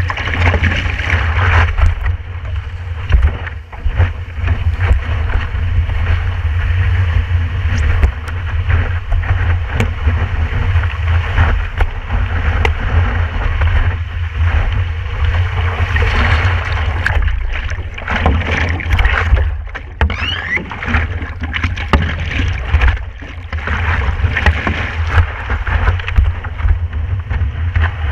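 Water rushing and splashing around a stand-up paddleboard riding breaking waves, with frequent sharp splashes. A steady wind rumble on the microphone of a camera mounted on the board's nose runs underneath.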